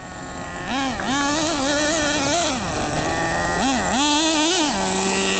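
RC truck's motor revving up and down as it is driven through dirt, its whine rising and falling in pitch several times, then holding one steady pitch near the end.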